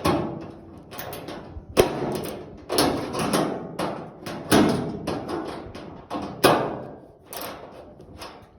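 An irregular series of about ten knocks and clunks, with scraping and rattling between them, like metal parts or tools being handled.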